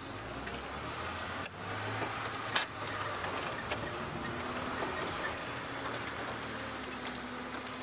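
Safari game-drive vehicle's engine running as it drives slowly over rough bush ground, with a few short knocks and rattles from the vehicle along the way.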